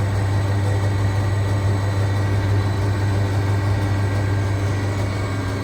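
Common-rail diesel injector test bench running with a steady hum, its pump holding about 400 bar for an idle-pressure test while the stuck injector on it fails to fire.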